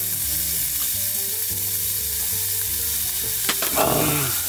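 Jeju black-pork neck sizzling steadily as it grills, with a sharp click about three and a half seconds in.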